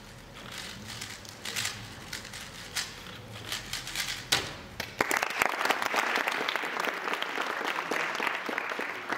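A speedcubing 3x3 cube being turned fast, scattered plastic clicks, then a sharp slap as the solve timer is stopped. About a second later audience applause breaks out and carries on.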